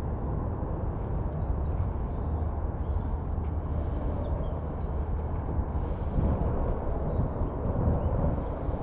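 Songbirds chirping and trilling over a steady low rumble, with a buzzy trill about six seconds in.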